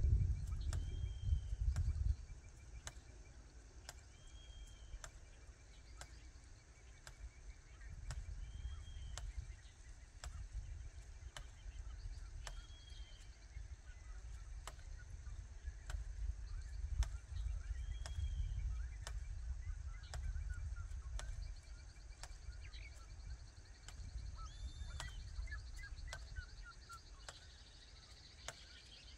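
Open farm-field ambience: a bird gives a short, arched call every few seconds over steady insect trilling, with scattered sharp clicks and a low rumble that swells and fades.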